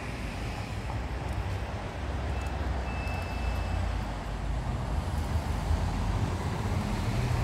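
Steady low rumble of road traffic, growing slightly louder toward the end.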